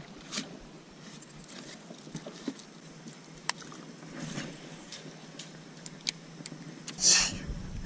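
Faint scattered clicks and ticks from fishing tackle and the small boat while a lure is reeled in, with one short splashy hiss about seven seconds in.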